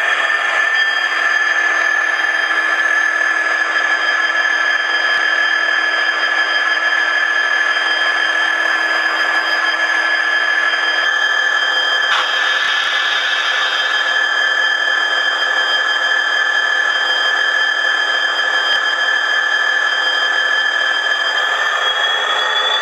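DCC sound decoder playing the engine sound of a Class 66 diesel locomotive, modelled on its EMD two-stroke V12, running steadily on a small speaker. The pitch rises near the end as the engine notches up.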